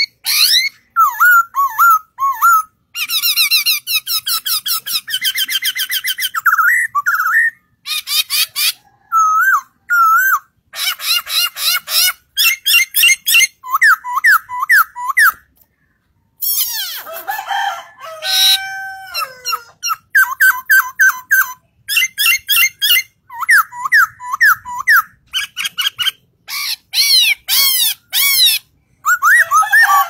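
Caged black-throated laughingthrush singing a long, varied song of loud whistled phrases, fast runs of repeated notes and trills, broken by short pauses and one clear silence about halfway through.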